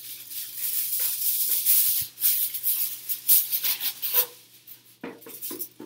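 Aluminium foil crinkling and crackling as a sheet is pulled off the roll and handled: a dense run of sharp, high-pitched crackles for about four seconds, then a few scattered ones.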